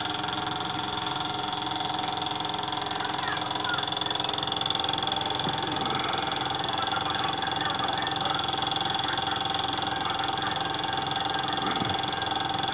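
Sankyo Sound-700 film projector running: a steady mechanical whir of its motor and film transport, with a constant high-pitched whine over it.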